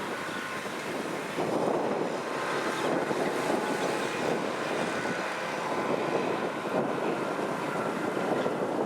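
Kubota M6040SU tractor's diesel engine running steadily with a dense, even drone while working the field.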